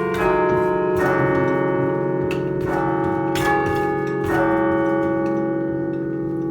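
Church tower bells, a 1939 John Taylor & Co chime of thirteen, chimed one note at a time: about six strokes in the first four and a half seconds, each note ringing on under the next, then the sound hangs and slowly dies away.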